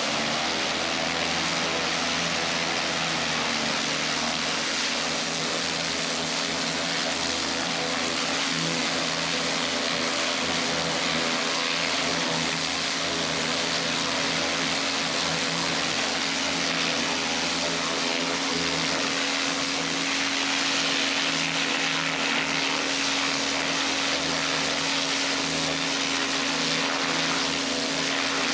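Kärcher pressure washer running steadily: a continuous motor hum under the hiss of the high-pressure water jet spraying the cobblestones.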